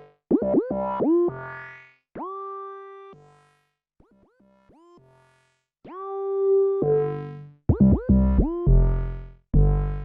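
MS-20-style monophonic analog synthesizer playing short phrases of notes, each sliding up in pitch as it starts. A few held notes stand out, with heavier low notes near the end.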